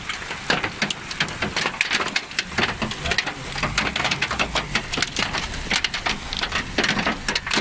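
Hail and rain pelting the ground in a storm: a dense, rapid, continuous pattering of small hard impacts.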